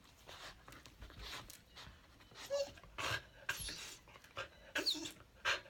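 A dog panting, in short, uneven breaths.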